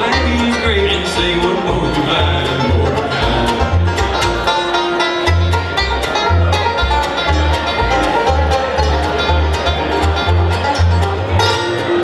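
Bluegrass band playing, with quick plucked string picking over a steady line of low bass notes.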